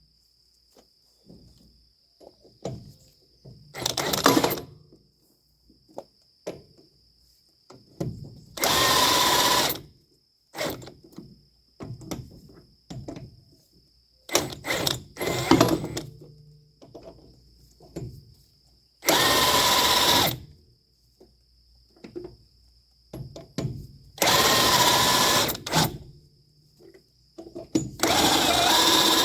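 A power tool run in about six bursts of one to two seconds each, with clinks and knocks of metal parts being handled between the bursts. A faint steady high-pitched whine runs underneath.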